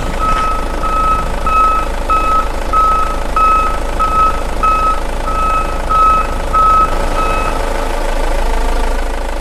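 Truck reversing alarm beeping steadily, about one and a half beeps a second, over a running truck engine; the beeps stop near the end while the engine keeps running.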